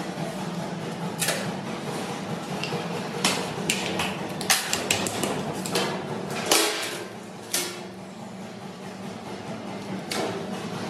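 Plastic shelf-edge price-tag strips clicking and snapping as they are pressed onto the front edges of metal supermarket shelves: a run of sharp clicks and knocks in the first two-thirds, one more near the end, over a steady low hum.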